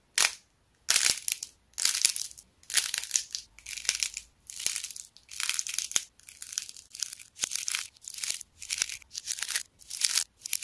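Glossy-coated clay envelope cracking and crinkling as hands squeeze, bend and knead it, heard as about a dozen short crackly bursts with brief silences between.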